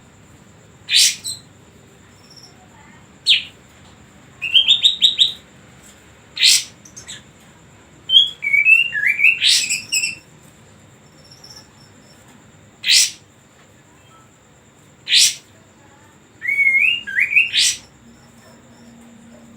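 Olive-winged bulbul (kapas tembak) singing: short, sharp whistled notes and quick warbled phrases, repeated every second or few seconds. This is the kind of song used as a lure track to stir other caged songbirds into singing.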